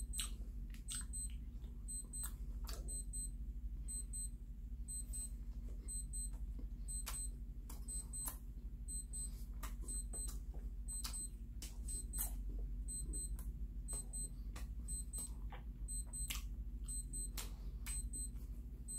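Chewing and wet mouth clicks of a man eating a flaky bread pastry, heard as irregular sharp clicks. Under them run a steady low hum and a fast, evenly repeating pattern of short high-pitched electronic beeps.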